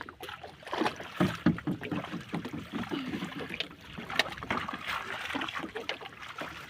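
Water sloshing and splashing, with irregular knocks and clatter; the sharpest knocks come about a second in and again about four seconds in.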